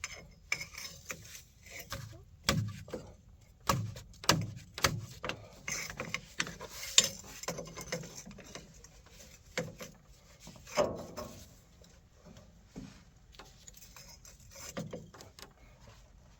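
Irregular metallic clinks and knocks of hand tools and hydraulic fittings being handled during wrench work on an excavator's hydraulic lines.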